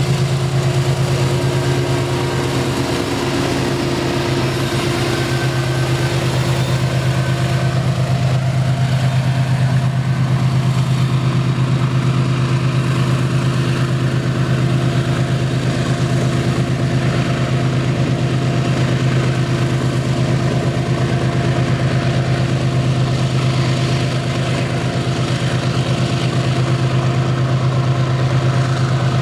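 Diesel freight locomotive engines running with a steady, unbroken drone.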